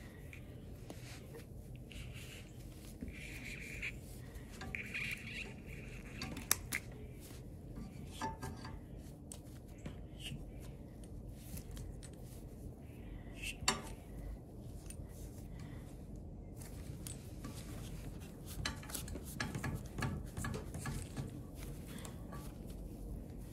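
Small metal clinks and clicks from a wire-mesh cord grip and its metal strain-relief connector being worked along an extension cord by gloved hands, scattered and irregular, with two sharper clicks about six and a half and thirteen and a half seconds in.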